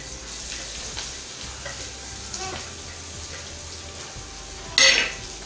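Chopped onion and chilli frying in hot oil in a steel kadhai: a steady sizzle with light scrapes of the stirring spoon. Near the end a short, loud burst of sizzle and scraping as grated carrot is tipped into the oil from a steel plate.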